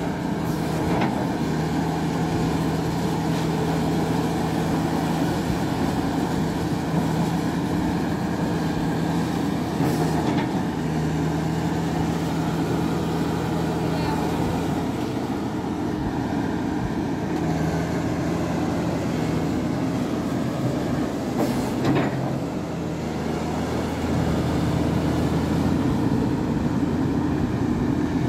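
SDLG crawler excavator's diesel engine running steadily under working load, its note shifting as the boom and bucket move, with a few sharp knocks along the way.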